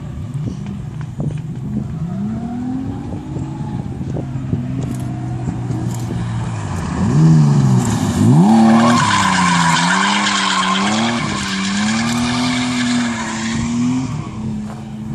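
Drift car sliding sideways through a corner, its engine revs rising and falling over and over as the throttle is worked. A loud tyre squeal sets in about eight seconds in and lasts some six seconds.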